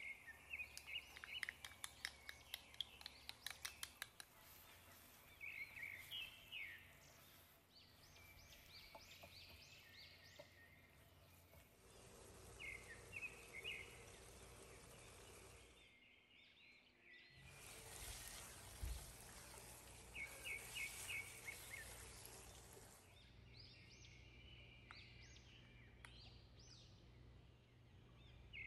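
Faint ambient sound: clusters of short, high, bird-like chirps over a steady low hiss, with a rapid run of ticks in the first few seconds.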